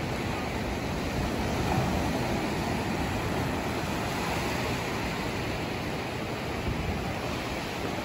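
Ocean surf washing steadily on the shore, with wind noise on the microphone.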